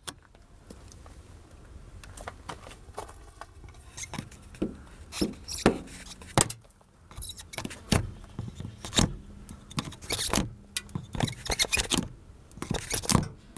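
Small hard objects being handled: irregular clicks, clinks and short scrapes, closer together and louder in the second half, over a faint low hum.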